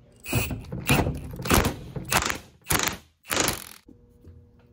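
Small three-jaw puller's forcing screw being turned with a wrench in about six short bursts, roughly one every half second, with metal grating as the rear bearing is drawn off an alternator rotor shaft.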